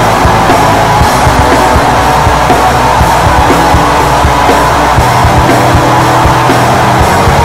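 Black metal recording: a dense wall of distorted electric guitars over fast, relentless drumming.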